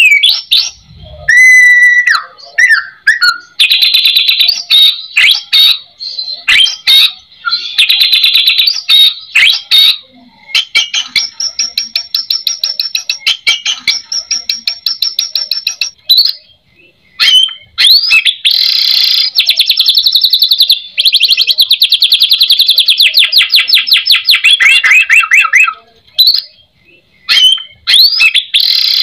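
White-rumped shama (murai batu) in full song: loud clear whistles and gliding notes, then two long, fast rattling runs of rapidly repeated notes, the second lasting about eight seconds. The song is varied and rich in mimicked phrases (isian), the continuous singing of a bird on top form (gacor).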